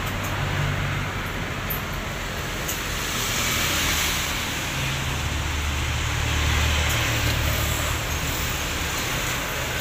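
Steady rumble of motor traffic and engines running nearby, a low drone that swells and shifts in pitch around the middle and eases off again.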